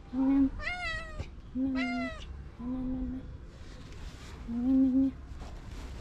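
Cats meowing again and again: a lower, fairly even meow about every second, and two higher-pitched meows in the first two seconds.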